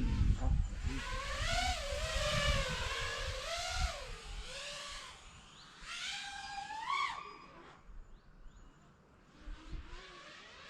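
Motors of an iFlight Nazgul Evoque FPV quadcopter in flight, a whine whose pitch rises and falls again and again as the throttle changes. Low wind rumble on the microphone in the first few seconds; the sound drops away for a stretch near the end.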